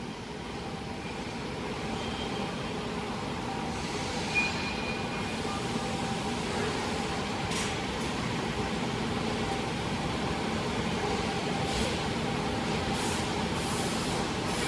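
Hybrid tube-and-sheet laser cutting machine running: a steady mechanical hum that builds slightly over the first few seconds, with a few short hissing bursts in the second half.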